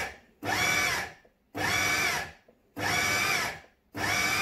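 Food processor run in short pulses, about four bursts under a second each with brief gaps, the motor whine rising as each pulse spins up and dropping as it stops. The pulsing stirs grated raw carrot with oil and spices without chopping it finer.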